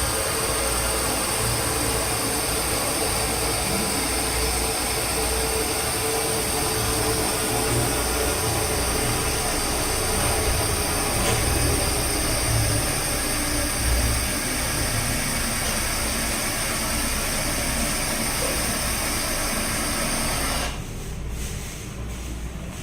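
Toilet flushing: a steady rush of water into the bowl as the tank empties, which falls away sharply about 21 seconds in.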